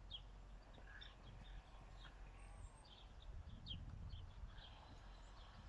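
Near silence, with faint, scattered bird chirps over a low background rumble.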